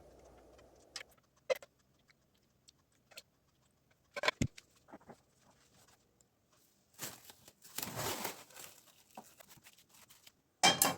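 Kitchen handling sounds: scattered light clicks and clinks of utensils or containers being moved. A short run of rustling, scraping noise comes past the middle, and a sharper clatter comes near the end.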